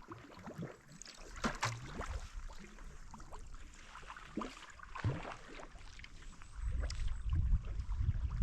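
Kayak paddle strokes in calm lake water: irregular splashes and drips as the blades dip and lift. A low rumble of wind on the microphone builds near the end.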